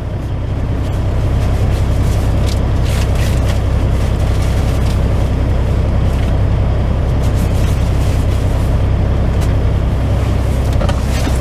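Semi-truck's diesel engine idling steadily, heard from inside the cab as a deep even rumble. A few light clicks and knocks come and go over it.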